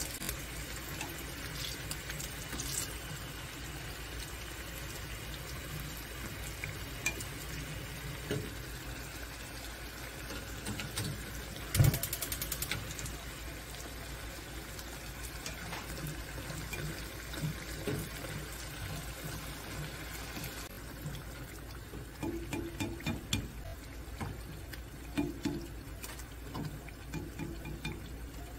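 Battered eggplant strips deep-frying in hot oil: a steady sizzle with small crackles and pops. About twelve seconds in there is a brief, loud rattle of sharp clicks.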